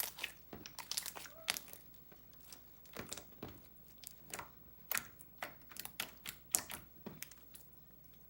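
Handmade slime squished by hand, giving an irregular run of small sharp pops and crackles several times a second, which stops near the end.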